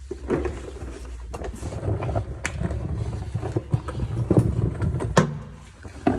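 Irregular clatter of knocks and clanks, a dozen or so of varying strength, over a steady low hum.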